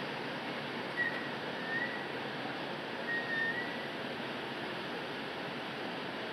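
Steady city street din, a constant hiss of traffic and urban noise. A few short high whistles sound over it, about a second in, again just before two seconds, and around three seconds in.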